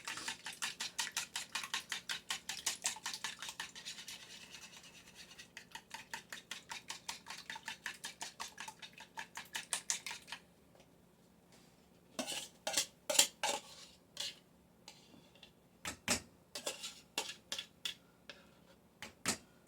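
Eggs being whisked briskly in a bowl: fast, even scraping strokes of about five or six a second for roughly ten seconds. These are followed by a few separate clinks and knocks of the utensil and bowl.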